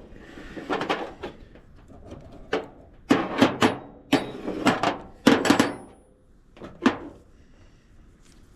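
Metal engine parts from a rocker-arm assembly clanking and knocking as they are handled and worked loose: a run of sharp knocks in small clusters, the last about seven seconds in.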